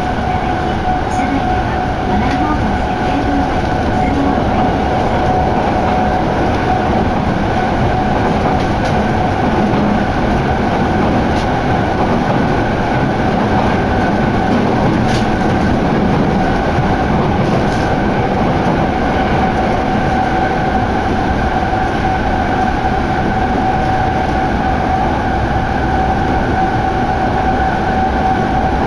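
Yokohama Municipal Subway Blue Line train running between stations, heard from inside the car: a steady rumble with a constant high whine held through the whole stretch.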